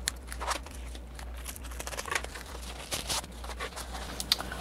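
Scissors snipping through a plastic bubble mailer, with scattered crinkles and rustles of plastic packaging as it is handled.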